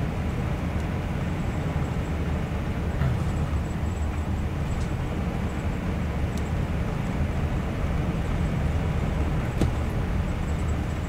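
Steady low engine and road rumble heard inside the cab of a 2018 Coachmen Leprechaun Class C motorhome driving slowly, with a few faint clicks.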